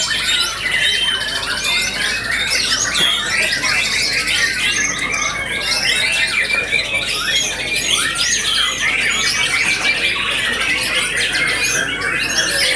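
White-rumped shamas singing, many birds at once: a dense, unbroken tangle of quick rising and falling whistles and trills.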